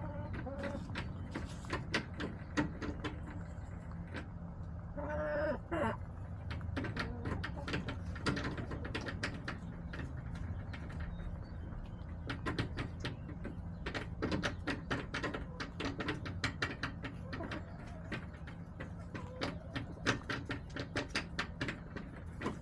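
Backyard hens vocalizing, with one louder drawn-out call about five seconds in and a few softer clucks. Many quick clicks and taps run throughout over a steady low hum.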